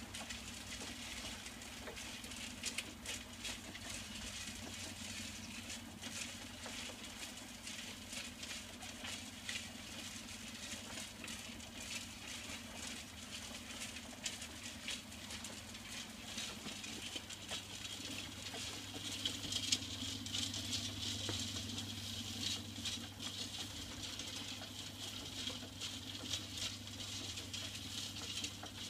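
Homemade drum mixer turning a load of compost: a steady motor hum under the continuous patter and rattle of compost tumbling inside the steel drum. The builder finds the motor short of power for the load.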